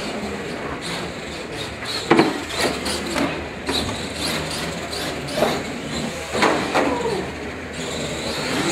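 Radio-controlled monster trucks racing on a hard floor: motors whining up and down in pitch, with irregular knocks and clatters as the trucks hit and land off the ramps.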